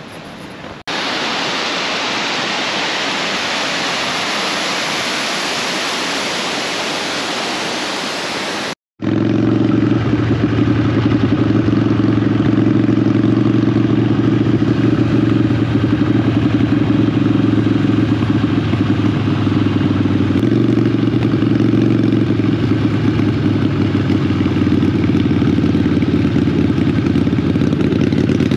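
Waterfall rushing as a steady, even hiss for about eight seconds. After an abrupt cut, a motorcycle engine runs steadily as a deep, even drone, louder than the water.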